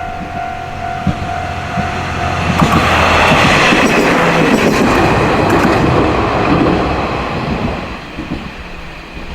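Railway crossing bell ringing with a steady tone, then the Yodo Line Hobby Train, a single KiHa 32 diesel railcar, passes over the crossing about two and a half seconds in. Its wheels clack over the rail joints, loudest in the middle, and the sound fades away near the end.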